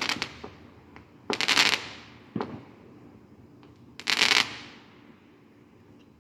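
Fireworks going off: two crackling bursts, about one and a half and four seconds in, with a few sharp bangs between them, the sharpest about two and a half seconds in.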